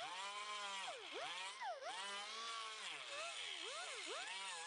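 DeWalt pneumatic right-angle grinder with a small sanding disc grinding the trimmed edge of a sheet-steel fender. Its whine drops in pitch again and again as the disc is pressed into the metal, and climbs back each time it eases off.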